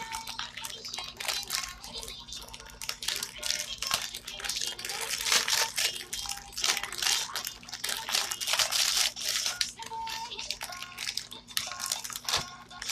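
Candy packaging crinkling and rustling in irregular crackly bursts as candies are handled and mixed.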